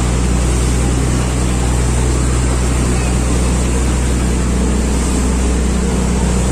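Boat engine running at a steady pitch, heard on board: a constant low drone under a steady rushing noise.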